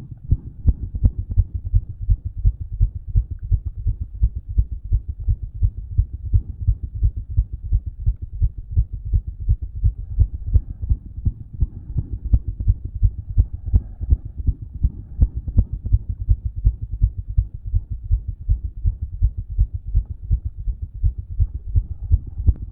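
Human heartbeat heard through a stethoscope after exercise: low lub-dub beats repeating in a steady rhythm, along with the heart murmur that exercise made louder.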